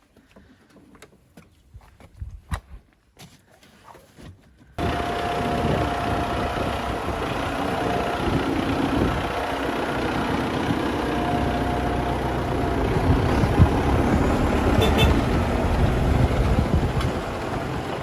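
Faint scattered clicks and taps, then tractor engines running loud and steady, starting suddenly about five seconds in.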